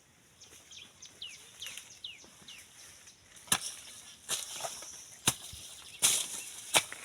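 A bird gives a run of short falling whistled calls, then a weeding tool strikes into grass and soil about three times, sharp and loud, with rustling scrapes of cut grass in between.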